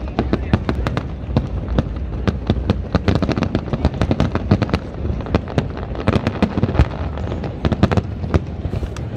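Aerial fireworks display, shells bursting in a rapid, continuous barrage of bangs and crackles, several reports a second over a steady low rumble.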